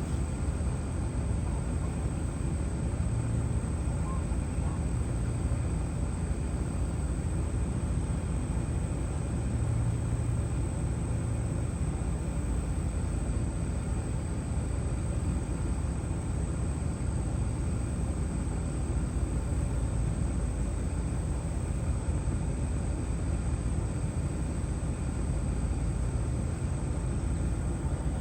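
Mammotion Luba 2 robotic lawnmower running: a steady whir from its motors over a low, even rumble.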